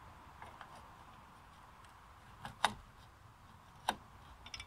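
Metal clicks and taps from the rear drum-brake shoes and springs being handled and seated on the backplate: a few soft clicks, then two sharper ones a little over a second apart.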